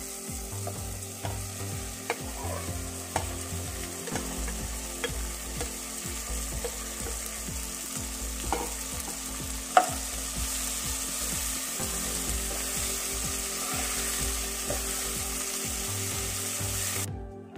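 Nakima (edible orchid flower buds) sizzling in hot mustard oil with a fried onion-tomato masala in a wok, with a spatula stirring and scraping the pan and clicking against it now and then; the sharpest knock comes about ten seconds in. The sizzle cuts off suddenly near the end.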